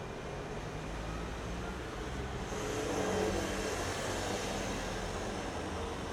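City street traffic: steady engine hum, with a motor vehicle passing that swells to its loudest about three seconds in and then eases off.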